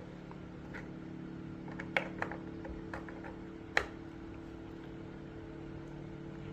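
A few light clicks and taps of plastic parts as a replacement oxygen sensor is pushed into a welding purge monitor's housing. The loudest click comes near the middle, over a steady low hum.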